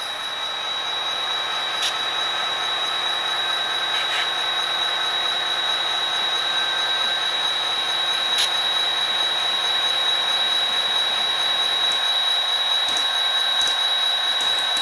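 A model SD40T-2 diesel locomotive's Soundtraxx sound decoder playing a diesel engine running steadily through its small speaker box, mixed with the whine of the model turntable's drive motor as it rotates. A few faint clicks sound, and the lower part of the sound drops out about twelve seconds in.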